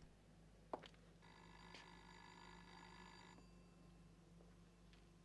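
A faint electric bell rings once for about two seconds, starting a little over a second in, with a couple of light clicks before it.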